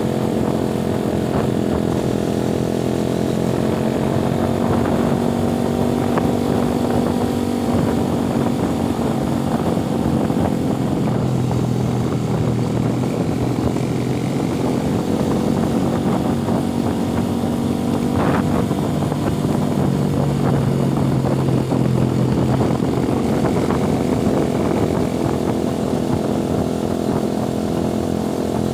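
Motorcycle engine running steadily while riding, its pitch shifting slightly up and down with speed.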